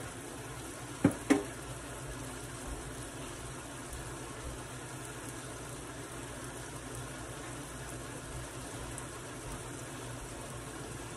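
Chicken breast pieces sizzling steadily in a frying pan on a gas stove. Two sharp knocks about a second in.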